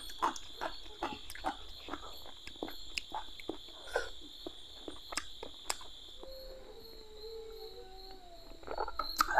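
Chewing and lip-smacking clicks as fried fish is eaten by hand, over a steady high cricket trill that stops about two-thirds of the way through. A dog then howls faintly for about two seconds, and near the end there is a louder clatter of bottles being handled.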